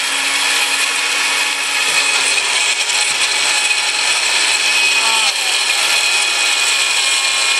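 Countertop blender running at full speed, its motor whirring steadily as it churns a thick tomato-juice mixture; the motor's tone shifts slightly about five seconds in.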